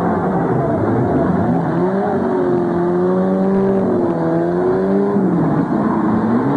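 Demolition derby car engines running hard. One engine revs up about two seconds in, holds high for about three seconds, then drops back.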